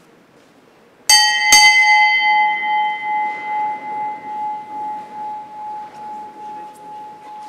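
A small bell struck twice, about half a second apart, then ringing on with one clear tone that slowly fades with a steady waver. It is the sacristy bell that signals the start of Mass as the priest and altar servers enter.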